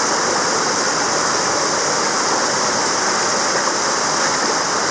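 Waterfall pouring, a steady loud rush of falling water.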